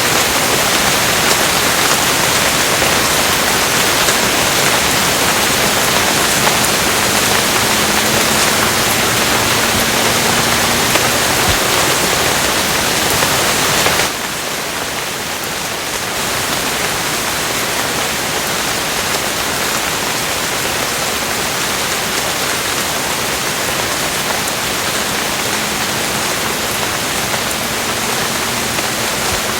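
Steady, dense rain hiss. About halfway through the level drops suddenly and the rain carries on slightly quieter.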